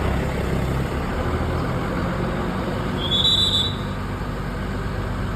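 Street traffic noise with a heavy vehicle engine running. About three seconds in, a short high-pitched tone sounds once, lasting under a second.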